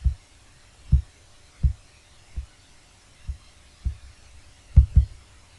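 A series of soft, low thumps at irregular intervals, about one a second, eight in all, over faint background hiss.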